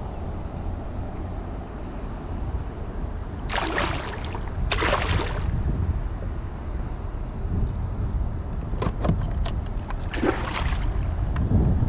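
A hooked snook splashing and thrashing at the water's surface beside a kayak: two splashes about four and five seconds in, and another near ten seconds, with a quick run of short ticks just before it, over a steady low rumble.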